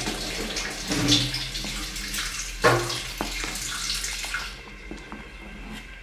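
A wooden spoon stirring thick, hot ogi (maize pap) in an aluminium pot, a wet sloshing noise with a few stronger strokes. It grows quieter about four and a half seconds in.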